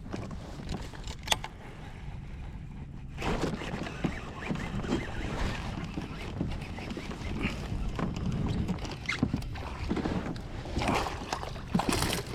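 Irregular knocks, clicks and water sounds on a plastic pedal kayak over a steady low rumble, the knocks growing busier and louder near the end.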